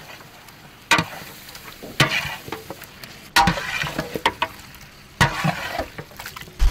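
Chicken wings stirred in a sizzling honey-chilli sauce, a ladle scraping and knocking against the pan in five strokes about a second or two apart, with frying crackle between them.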